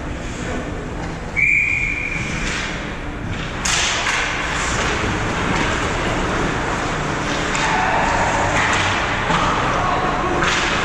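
A single referee's whistle blast, about a second and a half long, blown a little over a second in. A few seconds later a louder, steady rush of noise with scattered knocks sets in.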